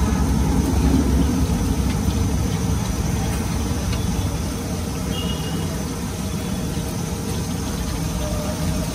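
Steady low rumble of a stove burner under a kadai of oil where flat dough chips are deep-frying, easing slightly over the seconds, with a faint hiss above it.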